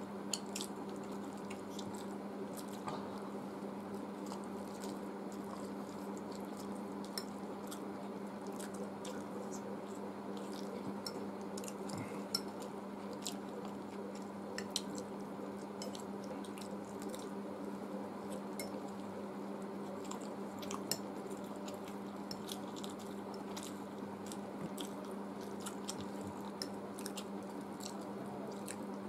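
Close-up eating sounds of two people chewing chow mein noodles, with scattered light clicks of a steel fork against glass plates. A steady low hum runs underneath.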